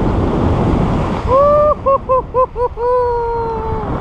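Wind rushing over the microphone in flight, then a man's joyful whooping yell: one long held cry about a second in, four short whoops, and a second long cry that sags slightly in pitch near the end.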